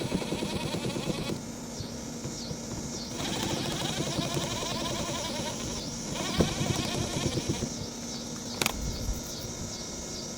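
A cordless power drill running in spurts, its motor buzz rising and easing as the speed changes, with a sharp click near the end.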